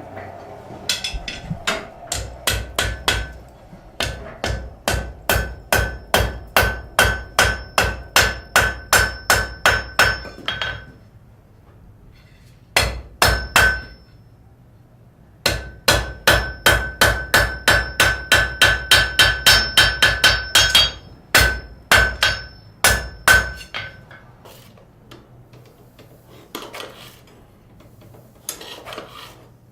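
Blacksmith's hammer striking work on an anvil in runs of steady blows, about two to three a second, each blow leaving a bright ring. There are short pauses between runs, and a few fainter taps near the end.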